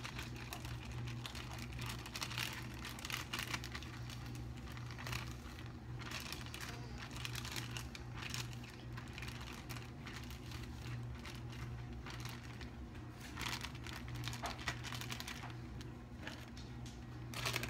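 Plastic zip-top bag crinkling in irregular bursts as it is squeezed and kneaded by hand, with glue and liquid starch inside starting to set into putty. A steady low hum runs underneath.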